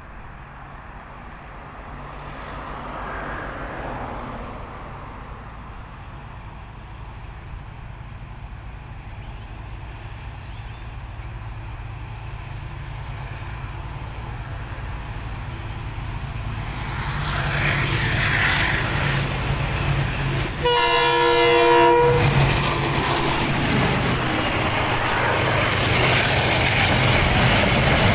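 Diesel-hauled KiwiRail freight train approaching, its locomotive's engine drone growing steadily louder. About two-thirds of the way through it sounds one short horn blast, then passes close by with loud rumbling.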